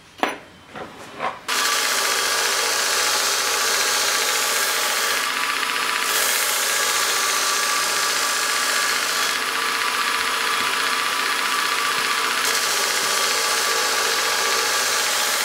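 A few knocks, then a surface grinder's wheel running and grinding a flat steel piece, a steady loud grinding hiss over a steady machine hum. The hissy top of the grinding noise thins out briefly twice as the wheel's contact with the steel changes.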